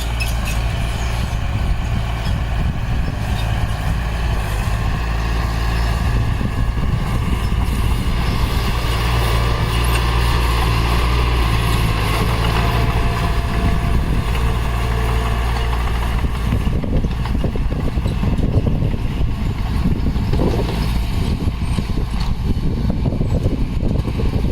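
Heavy diesel construction machinery (bulldozer or dump truck) running steadily under load. It turns rougher and more uneven about two-thirds of the way through.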